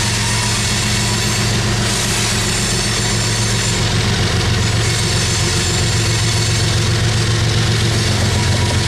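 Diesel locomotive engine running steadily with a deep, even hum.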